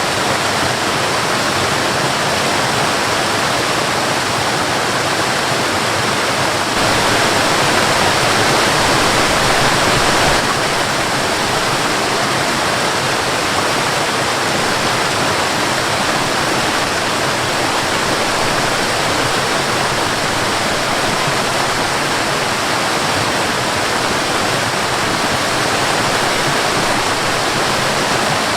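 Waterfall: a steady rush of falling water. For about three and a half seconds, starting about seven seconds in, it grows brighter and a little louder, then drops back abruptly.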